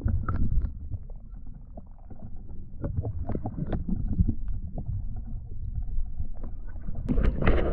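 Water sloshing and gurgling against a kayak hull, heard muffled through a camera half under the water, with many small knocks and clicks. About seven seconds in the sound turns brighter and louder.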